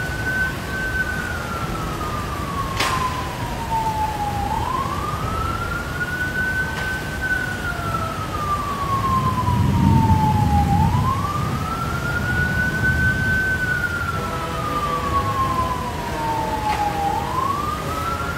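A siren wailing in a slow repeating cycle, about every six seconds: a quick rise, a short hold at the top, then a long slow fall. A low rumbling noise runs beneath it and swells about halfway through.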